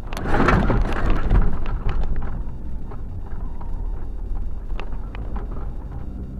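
A vehicle driving along a sand track, with wind rushing over the microphone over a low rumble of engine and tyres. The wind is loudest in the first two seconds, then settles, and scattered light clicks sound throughout.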